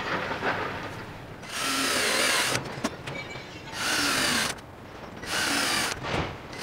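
Cordless drill boring countersunk screw holes in a planed softwood batten: three runs of about a second each, with a whine that shifts in pitch during each run.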